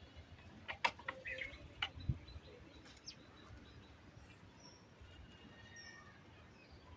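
Birds chirping faintly in short, high calls, with a few soft clicks and knocks in the first two seconds.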